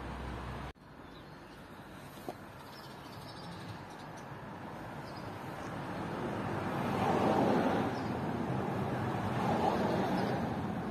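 Street traffic: passing vehicles swell up and fade twice, loudest a little past the middle and again near the end. A low rumble cuts off abruptly just under a second in.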